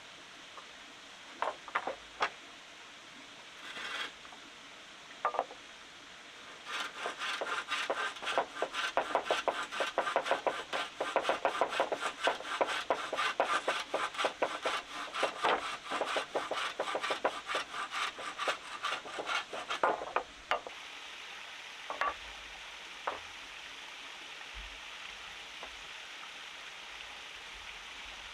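Rapid rhythmic rasping strokes against wood, like hand-tool woodwork, running for about fourteen seconds from around seven seconds in. A few single knocks come before and after, over a steady hiss.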